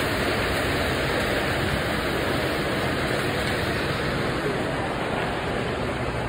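Steady rushing noise of a commercial kitchen line: exhaust hood ventilation and a gas charbroiler's burners running, with no pauses.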